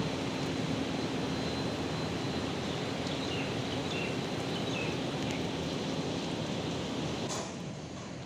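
Large barn ventilation fan running: a steady noise of moving air with a low hum, dropping in level a little over seven seconds in.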